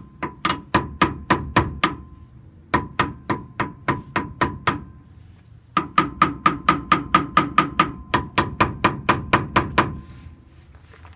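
Hammer tapping rapidly on metal at a VW T3 (Vanagon) wheel hub, about four light blows a second, each with a short metallic ring, to knock a part that was fitted wrongly back out. The taps come in three runs, with short pauses at about two and five seconds in, and stop near the end.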